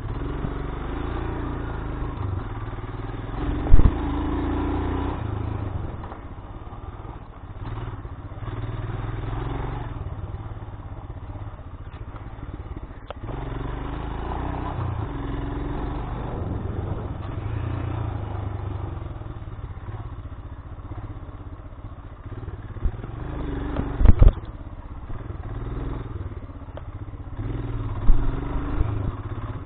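Royal Enfield Himalayan's single-cylinder engine running at low speed off-road, swelling and easing with the throttle, while the bike rattles over rough ground. Sharp knocks come about four seconds in, around twenty-four seconds and near the end as it hits bumps.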